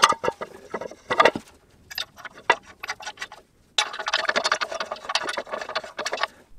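Metal clinks and taps of lug nuts being fitted by hand onto the wheel studs of a spindle and rotor hat assembly. A little past halfway a dense run of rapid clicking and rattling sets in and stops shortly before the end.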